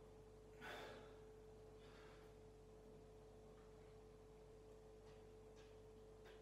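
Near silence with a faint steady hum, broken by one sharp exhale from a man holding a push-up, a little under a second in, and a fainter breath about two seconds in.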